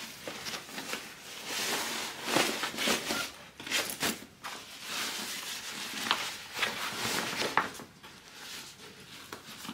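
Vinyl and canvas bag pieces rustling and crinkling as the bag's exterior is pushed inside its lining by hand, with several short, sharper crinkles.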